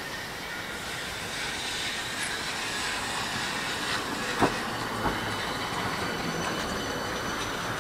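Tram running along its track, a steady rumble with a faint high whine, with two sharp knocks about four and a half and five seconds in.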